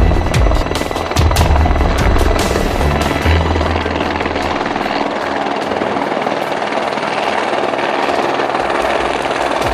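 Fire brigade rescue helicopter running, its rotor and engine giving a heavy low pulsing that drops away about four and a half seconds in, leaving a steady rushing noise.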